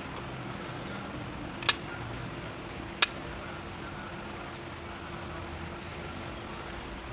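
Two sharp clicks about a second and a half apart, over a steady low hum.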